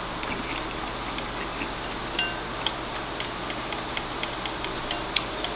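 Chopsticks clicking and scraping against a ceramic rice bowl as rice and egg are scooped up: many small ticks, with one clearer ringing clink a little over two seconds in. A steady fan hum runs underneath.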